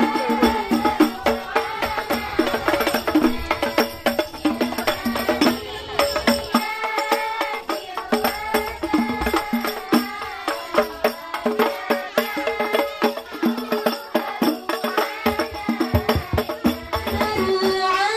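Rebana frame drums beaten in a quick, steady rhythm by a children's group, with singing over the drumming.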